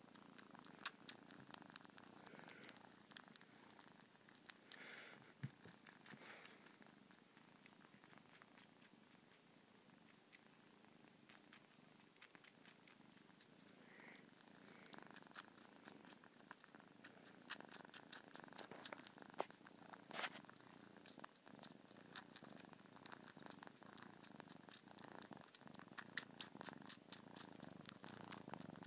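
A kitten purring softly and steadily while it nurses, with scattered faint clicks over the purr.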